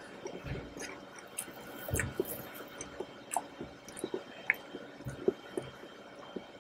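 Close-miked eating of soft chocolate raspberry mousse cake: wet squishing and chewing mouth sounds with scattered sharp clicks and smacks.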